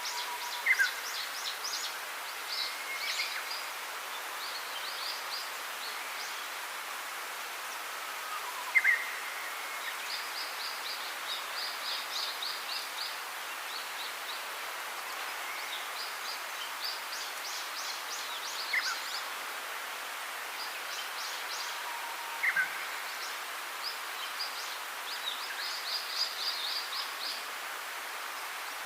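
Birds chirping in quick repeated trills over a steady hiss, with a few louder short falling whistled notes.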